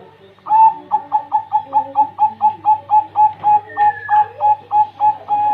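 A spotted dove (derkuku) cooing in a fast, even run of about twenty short notes at one pitch, about four a second, ending in one long held note. This is the unusual call said to sound like a kuntilanak.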